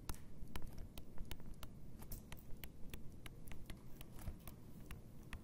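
Faint, irregular clicks of a stylus tapping on a tablet screen while writing, several a second, over a low steady hum.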